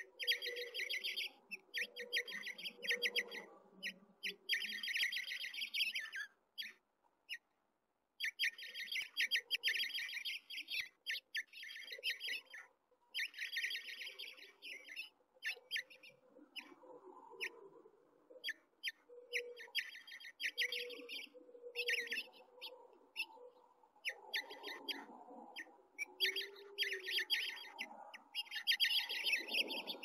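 House finch nestlings begging to be fed: bursts of rapid, high chirping lasting a second or two each, repeated with short gaps.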